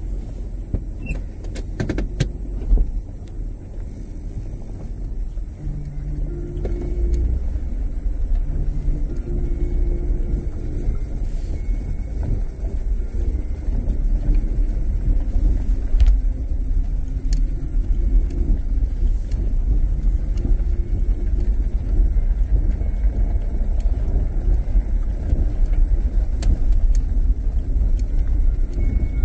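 Low, steady rumble of a car driving slowly over a gravel dirt track, heard from inside the cabin, with a faint engine hum and occasional small knocks.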